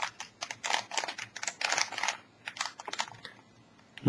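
Plastic Rubik's cube layers being turned in quick succession, a run of rattling clicks that stops a little over three seconds in.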